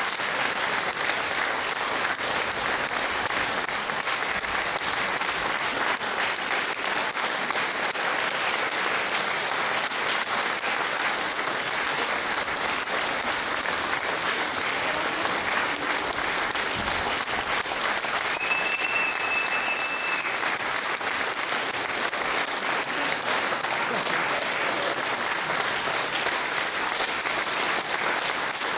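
Audience applauding steadily: dense, continuous clapping. A short, high, steady tone sounds for about two seconds a little past the middle.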